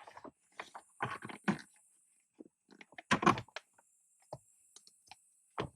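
Irregular clicks and light knocks of shifter parts being worked by hand. The loudest comes about three seconds in.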